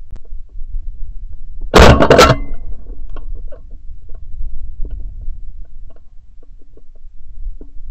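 A single shotgun shot about two seconds in, so close to the gun-mounted microphone that it is at full level. Around it there is a low rumble with faint scattered knocks.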